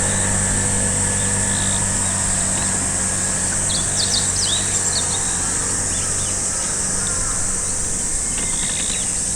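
Short, high, quick chirps of small songbirds, a cluster about four to five seconds in and a few more near the end, over a steady high insect drone and a low steady hum.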